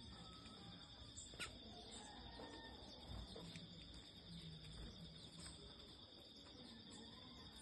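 Faint, steady high-pitched insect chorus with a few soft bird chirps over it, the sharpest about a second and a half in.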